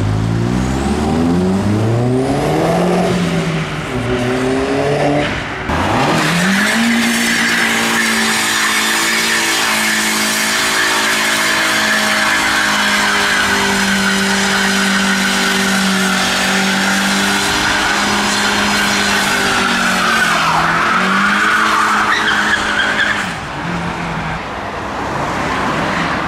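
Car engine revving hard, its pitch climbing for several seconds. It is then held at high, steady revs for about fifteen seconds while the tyres squeal, as in a burnout, and the revs fall away near the end.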